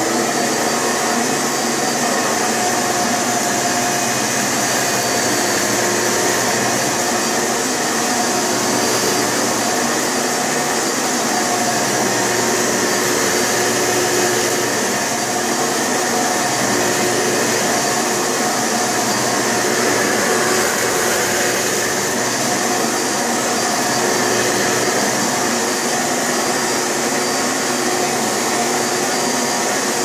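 Hoover Preferred upright vacuum cleaner running steadily at full power: a constant motor whine over a rush of air.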